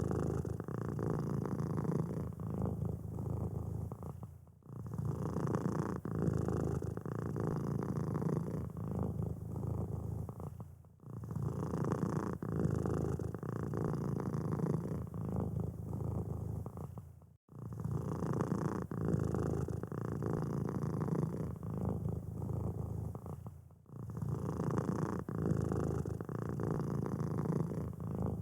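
Domestic cat purring close up, a low steady rumble broken by brief pauses about every six seconds.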